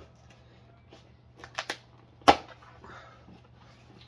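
Cardboard shipping box being opened by hand: a couple of quick clicks about one and a half seconds in, then one loud sharp snap a little past halfway, followed by cardboard rustling.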